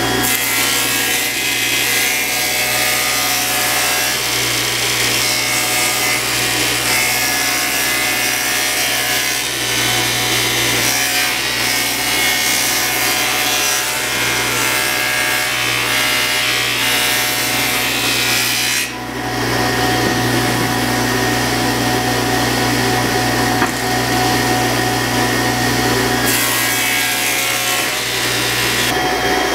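Table saw running and ripping solid wood boards lengthwise, a steady loud cutting noise over the motor's hum. The cutting briefly drops off about two-thirds of the way through, between boards.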